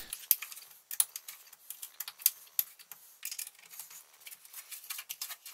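Irregular light metallic clicks and taps of a hex key turning M5 screws through a plywood baseboard into T-nuts in an aluminium extrusion.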